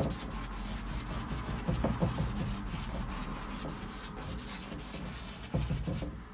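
Stiff 1-inch hog's-hair bristle brush scrubbing oil paint onto a gesso-primed canvas: a steady rubbing of bristles on canvas made of many short strokes, stopping just before the end.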